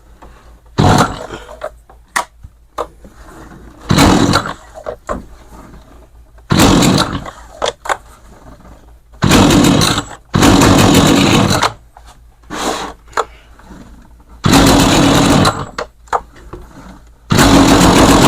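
Stihl two-stroke chainsaw being pull-started on half choke: the engine fires and runs for about a second at a time, six times, dying after each, then catches near the end and keeps running.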